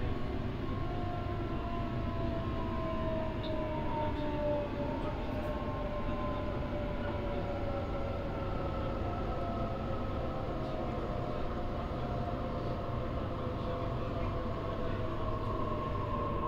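Electric suburban train heard from inside a carriage as it brakes into a station: a steady rumble of wheels on the track, under a whine from the motors that falls slowly in pitch as the train slows.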